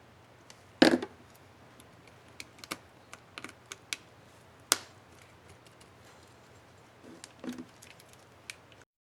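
Irregular plastic clicks and taps of keys on an HP Pavilion dm4 laptop keyboard, with a loud click about a second in and another sharp one a little before halfway. A short cluster of softer clicks comes near the end.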